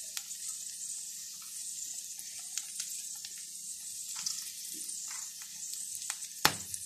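Egg omelette mixture gently sizzling in a frying pan over very low heat: a steady hiss with scattered small crackles. One sharp click about six and a half seconds in.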